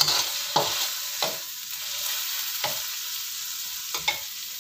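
Chili paste and a splash of water sizzling in a hot non-stick wok. The sizzle is loudest at the start as the liquid hits the pan, and a metal spatula knocks and scrapes against the wok about six times as it stirs.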